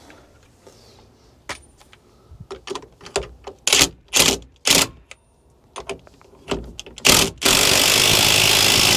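A series of knocks and clicks as the washer, nut and socket are fitted to the steering-wheel shaft, then a cordless driver runs steadily for about two seconds near the end, spinning the steering-wheel nut down onto the column.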